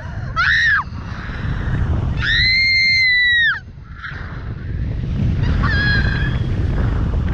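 A woman's high-pitched squeals of excitement, three of them: a short rising one, a long held one that falls away at its end, and a shorter one near the end. Rushing wind buffets the microphone underneath.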